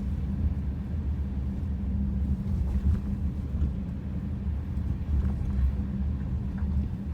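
Steady low rumble of a car driving on a road, heard from inside the cabin.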